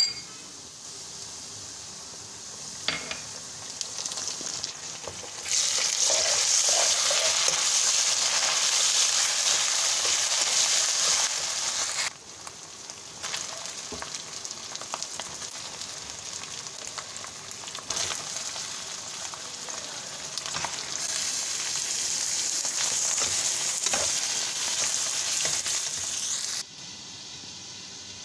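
Chicken pieces and browned onions sizzling in hot oil in a pan, stirred with a metal spatula. The sizzle is loud for two long stretches, quieter between them, and changes level abruptly, with a few sharp clicks of the spatula.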